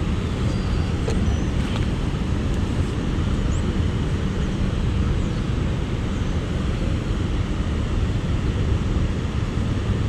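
Steady low rumble of road traffic, with a few faint high chirps.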